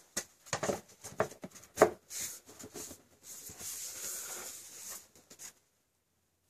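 Cardboard mouse packaging being handled: a run of knocks and taps for the first two seconds, the loudest near two seconds in, then about three seconds of cardboard rubbing and sliding, stopping about five and a half seconds in.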